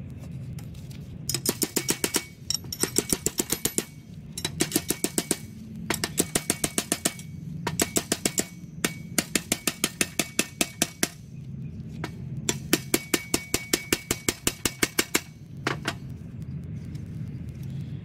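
Claw hammer tapping a brass ferrule down over the top of a wooden machete handle: quick ringing metal taps, about six a second, in bursts of a second or so with short pauses, then one last lone tap.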